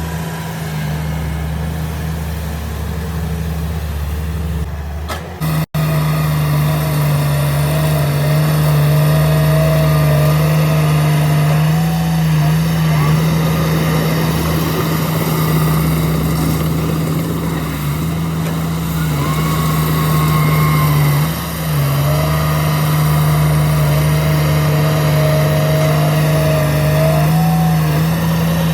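Heavy diesel engine of earthmoving machinery running under load, a steady hum whose pitch dips and rises a little several times; the sound breaks off for an instant and returns louder about six seconds in.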